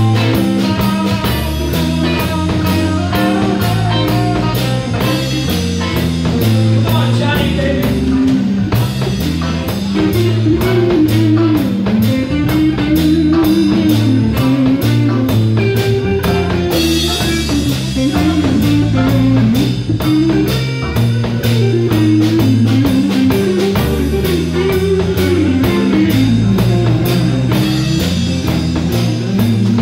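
Live blues-rock band playing an instrumental passage: a guitar lead line with bent notes over electric bass and a drum kit.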